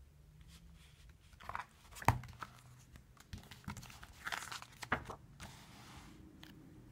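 Pages of a hardcover picture book being turned by hand: several soft rustling swishes of paper, with a sharp tap about two seconds in and a lighter one near five seconds as the cover and pages are laid down.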